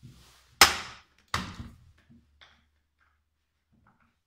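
Hard plastic clacks and knocks as a Husqvarna 418 EL electric chainsaw is handled on a wooden tabletop. There are two loud, sharp clacks under a second apart, then a few lighter taps.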